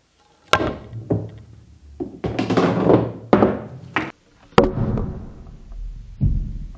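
Cue ball struck hard with a Kielwood pool cue shaft, then a string of sharp knocks and duller thunks as the ball hits and travels on the table. The first knock comes about half a second in, another loud one a little past the middle, and a low thump near the end.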